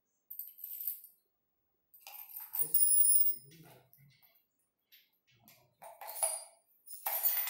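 Small metal fittings and Allen keys clinking and jingling as they are handled and put down on a tiled floor, in several separate bursts, with a short metallic ring about three seconds in and the loudest clatter near the end.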